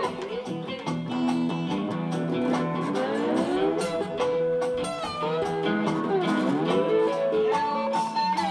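Acoustic guitar and slide guitar playing a bluesy instrumental, the slide gliding up and down between notes.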